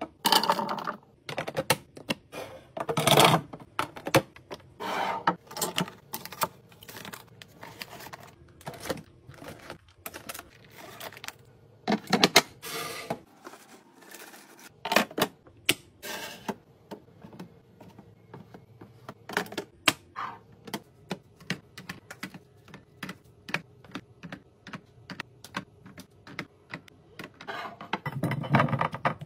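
Rapid, irregular clicks and clacks of plastic and glass containers, bottles and cans being set down and arranged on fridge shelves, with a few louder rustling, clattering stretches between them.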